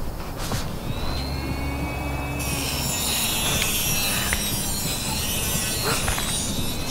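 Horror-film sound-design drone: a low steady rumble that swells for a couple of seconds, with a high hiss layer that comes in suddenly about two and a half seconds in.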